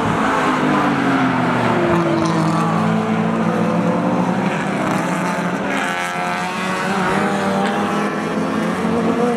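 A pack of touring-class race cars running through a corner, several engines at once, their overlapping notes rising and falling in pitch as the drivers lift and accelerate.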